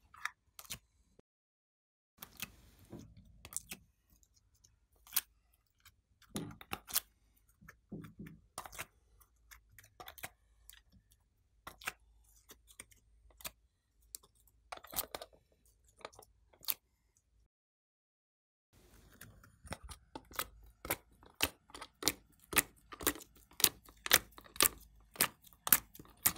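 Thin clear plastic mould tray clicking and crackling as slime cubes are pressed out of it by hand, with soft taps as the cubes are set down. A faster run of sharp plastic clicks comes near the end as the tray is flexed.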